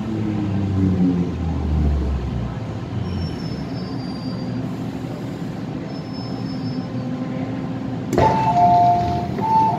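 MTR M-Train subway car braking into a station: the traction motor whine falls in pitch over a rumble of wheels on track, with brief high-pitched wheel squeals. Near the end there is a sharp clunk as it comes to a stop, followed by a two-note electronic tone, heard twice.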